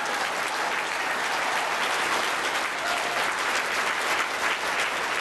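An audience applauding steadily, a dense unbroken round of clapping.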